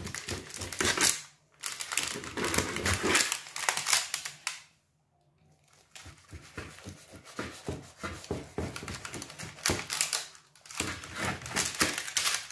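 Knife cutting through the flaky baked puff-pastry crust of a frangipane galette des rois, crackling in several bouts with a short break about halfway through.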